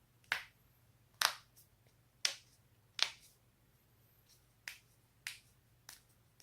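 A series of sharp joint cracks, about seven pops at irregular intervals of roughly half a second to a second. The four loudest come in the first three seconds and the rest are fainter.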